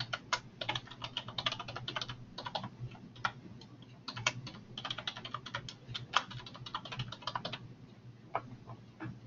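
Typing on a computer keyboard, entering a username and then a password: runs of quick key clicks broken by short pauses.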